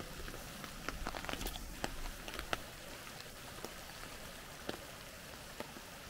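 Snow falling in a snowstorm: light, irregular ticks of flakes striking a surface over a steady faint hiss, with more ticks in the first few seconds.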